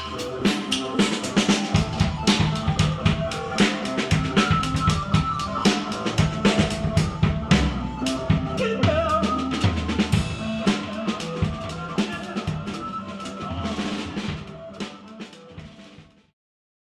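Noise-rock duo playing: a fast, dense barrage of drum-kit hits (snare, kick, rimshots) over sustained electronic tones from a Casio keyboard. The music thins out slightly toward the end and then cuts off suddenly.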